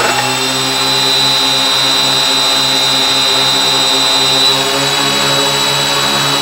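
Several brushless outrunner electric motors on a large model airplane running steadily at low throttle, a motor hum with a steady high whine above it.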